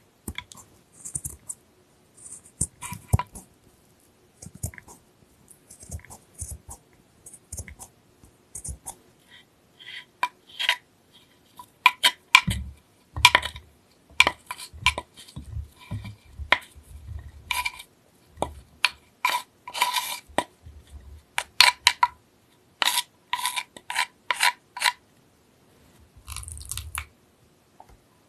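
Irregular scraping, clicking and knocking of hand work on tree bark being prepared into paper pulp, with some duller thuds among the sharper strokes.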